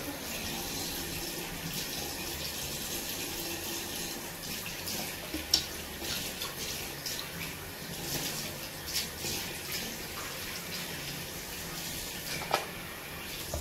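Tap water running steadily into a sink, with a few sharp splashes, the loudest about five seconds in and another near the end, as water is used to rinse off a charcoal face mask.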